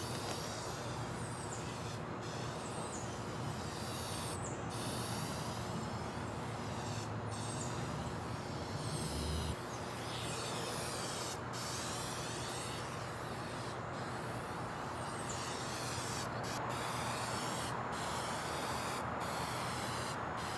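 Aerosol can of Duplicolor black trim and bumper paint hissing as it is sprayed onto plastic fender liners in passes, breaking off briefly about a dozen times between strokes.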